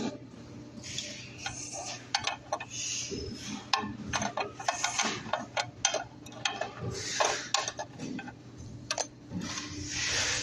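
Open-end wrench clicking and scraping on a metal nut, irregular sharp clinks and rubbing, as the charging port's retaining nut is worked loose.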